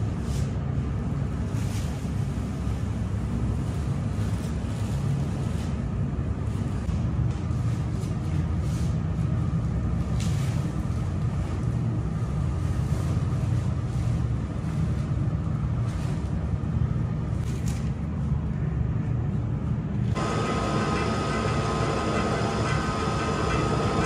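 Steady low rumble of bakery machinery, with short rustling strokes as woven flour sacks are shaken out into a dough mixer's bowl. About 20 s in the sound changes, and a steady whine joins the rumble.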